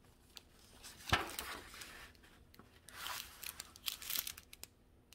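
Paper sheets and small plastic bags rustling and crinkling as they are handled. The loudest rustle, with a soft thump, comes about a second in, and shorter rustles and light clicks follow near three and four seconds.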